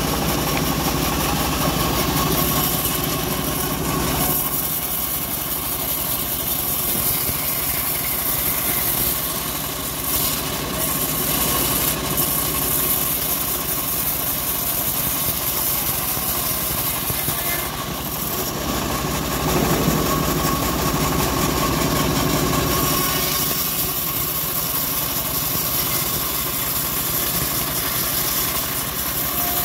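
Homemade engine-driven bandsaw sawmill running steadily while an acacia log is fed through the blade. The sound is heavier and deeper at the start and again about twenty seconds in, as the blade cuts under load.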